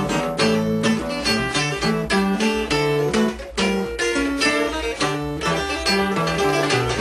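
Two acoustic guitars played together, chords strummed in a steady rhythm with changing bass notes.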